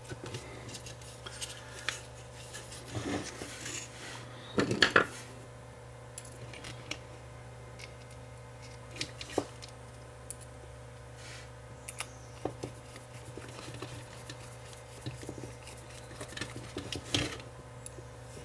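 Scattered light clicks, taps and clatter of a circuit board, heat-sink pad and plastic housing being handled and fitted back together, with a small screwdriver and screws picked up. The loudest clatter comes about five seconds in and another burst near the end, over a steady low hum.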